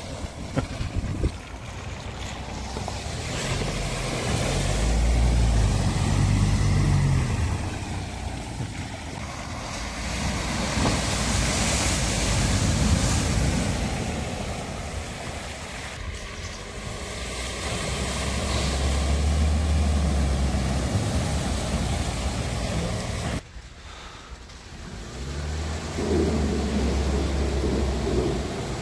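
Vehicles driving through a deep flooded ford one after another. Each engine runs low and swells in and out as it passes, over the steady rushing and splashing of the water thrown up around the wheels. Near the end the sound cuts suddenly to another pass.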